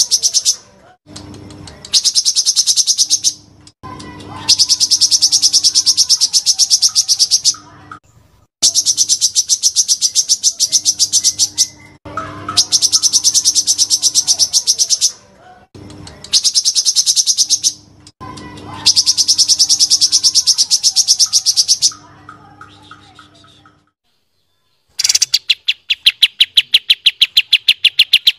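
Songbird singing long, very fast high trills in bursts of one to three seconds with short gaps between them. Near the end a lower, even faster rolling trill starts.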